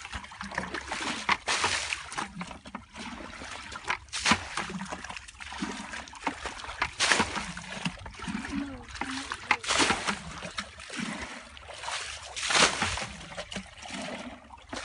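Shallow muddy water being bailed with a plastic bucket: a splash of thrown water every two to three seconds, with sloshing and trickling in between.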